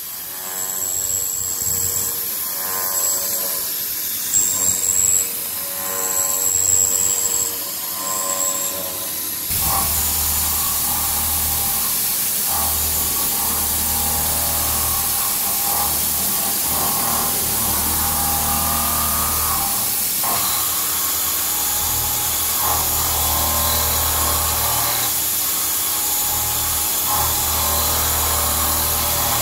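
A UDM-2216 three-axis CNC machining center milling a steel mold component: the cutter makes steady, changing tones against the hiss of coolant or air spray. About a third of the way in the sound changes suddenly to a steadier, louder cutting noise with a low hum underneath.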